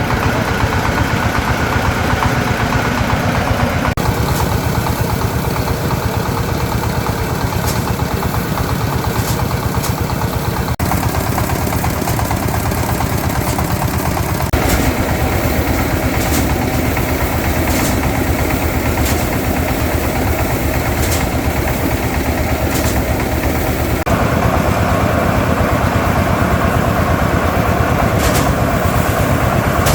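A small engine running steadily, its sound changing abruptly several times, with faint clicks over it.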